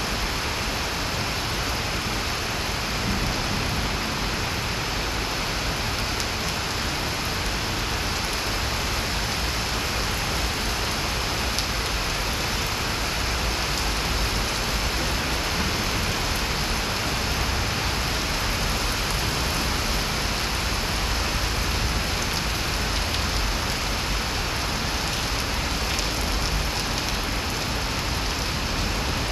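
Heavy rain pouring steadily onto trees, shrubs and wet paving, a dense, even hiss with no breaks.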